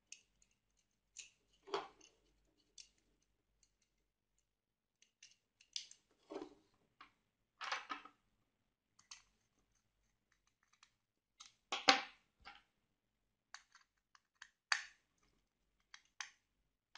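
Scattered small clicks and scrapes of a plastic lamp holder and its wires being handled while a cable conductor is fitted into the holder's terminal and the terminal screw is tightened with a screwdriver. The sharpest click comes about twelve seconds in.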